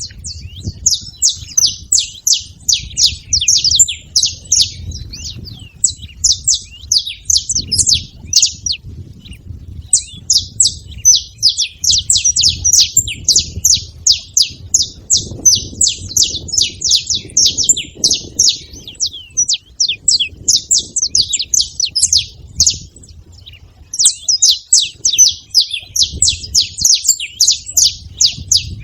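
Several saffron finches chirping together in a dense, rapid stream of sharp high chirps, with short lulls about a third of the way in and again near the end.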